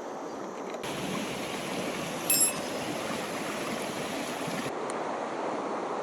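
A small mountain stream, swollen and clouded by heavy rain, flowing steadily with an even rush of water. About two and a half seconds in there is a brief, high ringing chime.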